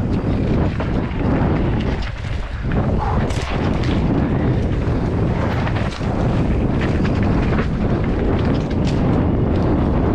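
Wind buffeting the microphone over the rattles and knocks of a mountain bike bouncing down a rough dirt singletrack at speed.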